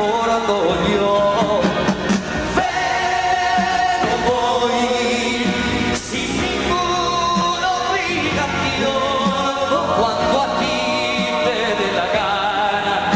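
Live concert recording of a male singer singing a ballad over band accompaniment. He holds long wavering notes.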